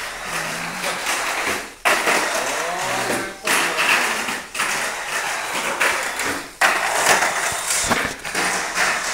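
Tamiya mini 4WD car with a Light-Dash motor running laps on a plastic three-lane track: a dense, high-pitched running noise of motor, wheels and rollers against the track walls, breaking off abruptly a few times.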